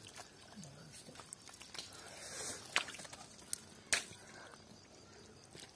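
Mud-coated stinging catfish (shing) squirming in a tub of mud slurry: soft wet squelching and slithering, with two sharp clicks about three and four seconds in.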